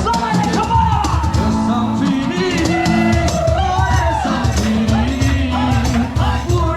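Background music: a song with a singing voice over a steady drum beat and bass.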